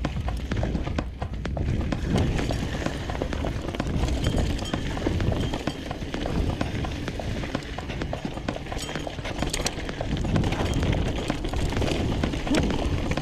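Mountain bike riding fast down dry, rocky singletrack: knobby tyres crunching over dirt and stones and the bike rattling with many small irregular knocks, under a steady low rumble of wind on the microphone.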